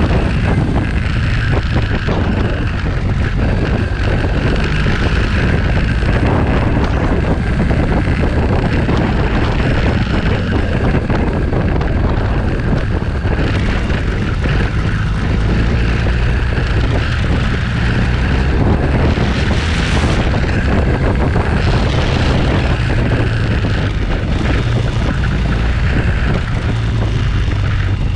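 Motorcycle riding at speed: wind buffeting on the microphone over the bike's steady engine drone and road noise.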